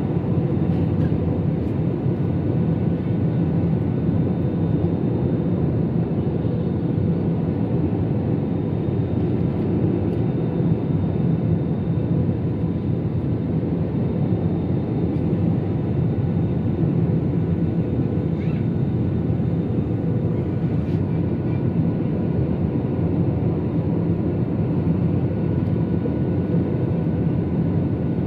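Steady engine drone heard inside an airliner's cabin: an even low rumble with a few faint steady tones above it.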